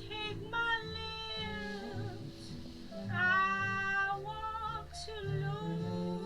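Jazz music: a bass line stepping from note to note under a high lead of long, sliding notes that bend up and down.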